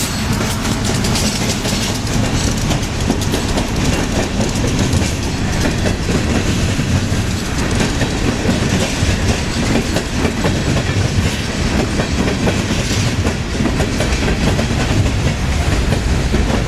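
A train rolling past close by, its cars running steadily with many wheel clicks over the rails.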